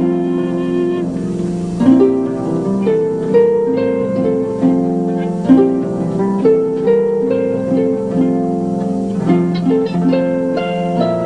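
Background music of plucked strings, harp-like, with a run of separate notes.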